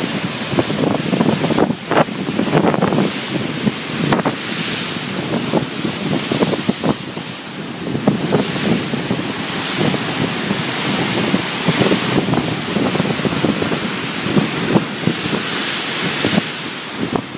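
Ocean surf washing in surges, with wind buffeting the microphone.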